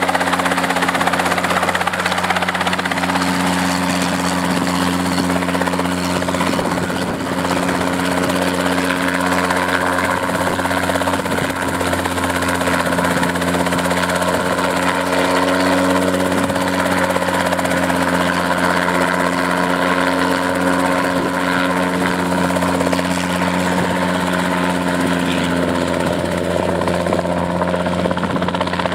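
Safari 500 experimental light helicopter hovering low, its piston engine and main and tail rotors running steadily with a deep, even hum.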